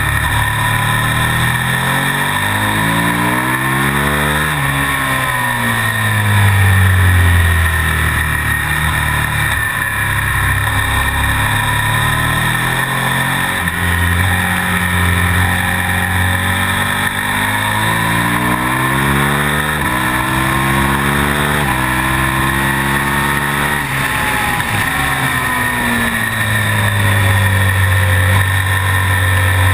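KTM Super Duke's V-twin engine at racing pace: revs climb through the gears with sudden drops at each upshift, then slide down under engine braking into corners, a long fall a few seconds in and another near the end.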